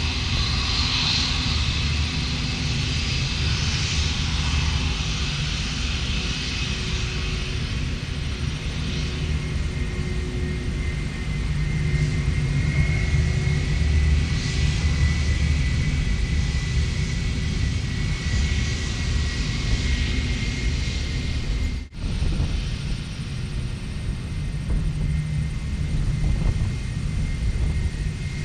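Airbus A320 jet engines at taxi power as the airliner rolls past: a steady low rumble with a thin high whine held on one pitch. The sound drops out briefly about three-quarters of the way through.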